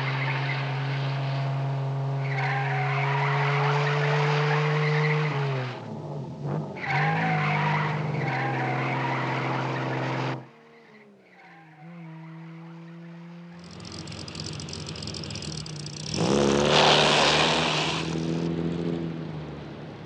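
A car engine running under load, its note climbing and then falling back about five or six seconds in. It cuts off suddenly around ten seconds, and after a quieter stretch a louder rush of engine and road noise swells up again near the end.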